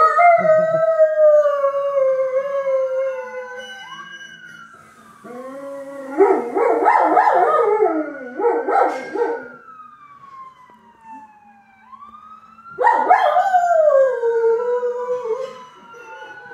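A dog howling in three long bouts along with an ambulance siren's slow rising-and-falling wail; the middle bout wavers rapidly in pitch.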